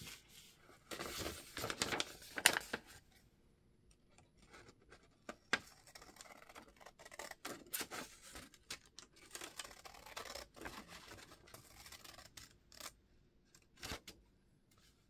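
Large scissors cutting through folded paper: a run of short snips with sharp clicks of the blades, busiest about one to two and a half seconds in, then scattered snips and paper rustles.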